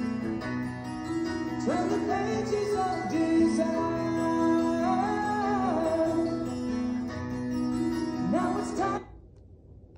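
A song with singing and guitar playing from the iPod dock through a Yamaha YAS-70 sound bar and its subwoofer, cutting off abruptly about nine seconds in.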